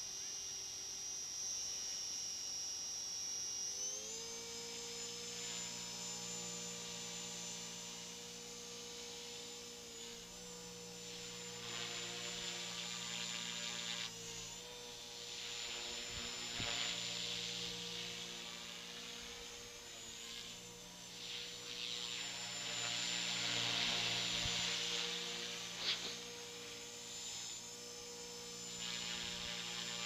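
Electric T-Rex 450 clone RC helicopter flying: a steady high whine from its electric motor and gears steps up in pitch about four seconds in, then holds. The whoosh of the rotor blades swells and fades several times as it manoeuvres, with a single short knock late on.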